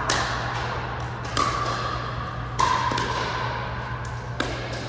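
Pickleball paddles striking the hollow plastic ball in a rally: four sharp pops a second or so apart, with fainter taps between them.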